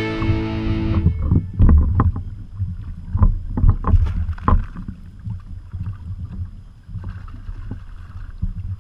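Background music cutting off about a second in, then a run of splashes and knocks as a fish is released over the side of a kayak, over a steady low wind rumble on the microphone.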